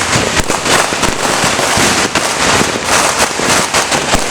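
Dense, continuous crackling and popping of firecrackers and fireworks going off together, many sharp bangs overlapping with no pause.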